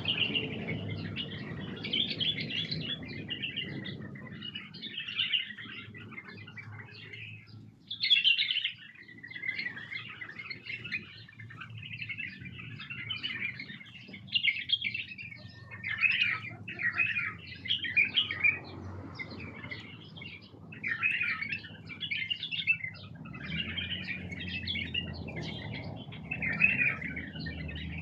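White-eared bulbuls calling: short chirping phrases one after another, with a low hum underneath that grows louder near the end.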